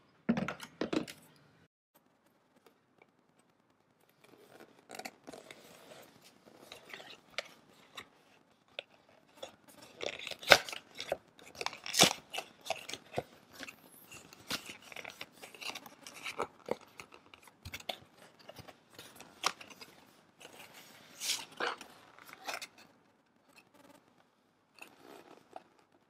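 White cardboard cake box being handled and opened: card and paper rustling and crinkling, with many sharp snaps and clicks coming irregularly for about twenty seconds.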